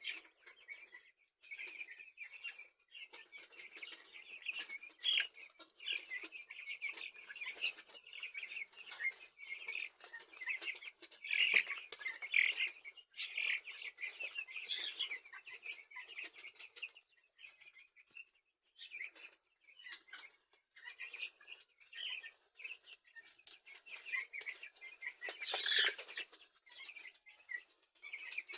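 A flock of two-week-old broiler chicks peeping continuously, many short high chirps overlapping. There is a brief, louder noise near the end.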